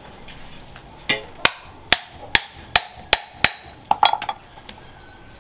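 Hand hammer striking a metal ferrule on a wooden knife handle set in a steel plate. About seven sharp metallic blows come at an even pace, then a quick flurry of lighter ringing taps.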